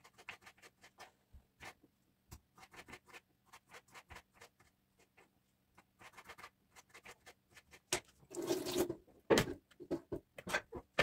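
Kitchen food preparation: irregular light taps and scrapes of a knife or utensil, with a couple of louder noisy bursts about eight to nine seconds in.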